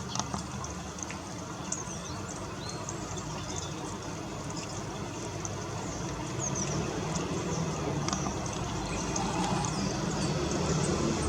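Steady rain noise with a low rumble underneath, and short high chirps of small birds scattered throughout, the whole growing a little louder towards the end.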